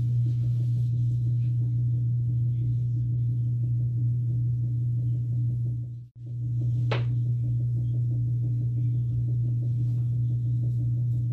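Steady low hum at a single pitch, cut off for a moment about six seconds in.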